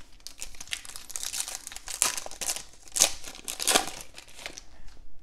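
Foil wrapper of a Donruss football card pack crinkling and rustling in the hands as the pack is torn open and the cards pulled out, with a few louder crackles about two, three and nearly four seconds in.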